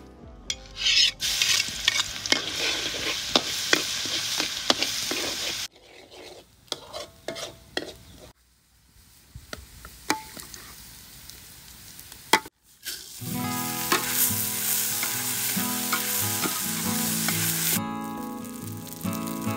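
Stir-frying in a large metal wok. Hot oil and food sizzle while a metal spatula scrapes and clacks against the pan, in two loud stretches with a quieter gap with a few clinks between them. In the second stretch cooked rice is being fried.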